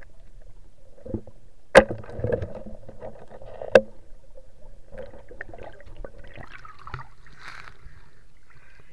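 Muffled water sound heard underwater in a river, with two sharp knocks about two seconds apart, then splashing near the end.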